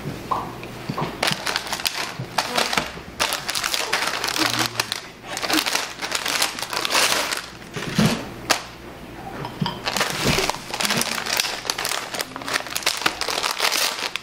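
Plastic cookie package crinkling and rustling in repeated bursts as sandwich cookies are taken out of it, with a brief lull a little past the middle.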